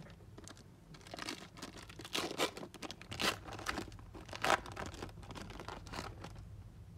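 Foil and plastic wrappers of trading card packs being handled and torn: irregular crinkling and tearing, busiest in the middle few seconds.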